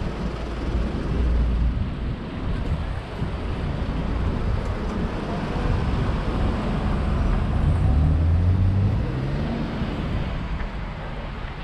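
Street traffic: a motor vehicle's engine runs close by, its pitch rising as it speeds up about two-thirds of the way through, over a steady low rumble of road noise.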